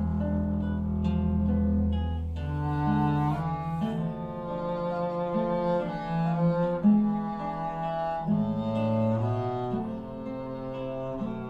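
Instrumental music with low, held string notes that change every second or so, played back through Eternal 8.3 three-way bookshelf speakers driven by a tube amplifier.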